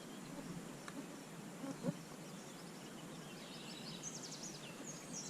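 Quiet outdoor background hiss by a trout stream, with a few light clicks and faint high chirps from a small creature starting about four seconds in.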